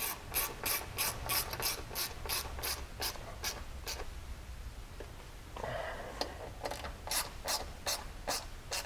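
Hand ratchet wrench clicking as bolts are tightened into a skid plate, about three clicks a second in two runs with a pause of about two seconds between them. A brief rustle comes in the pause.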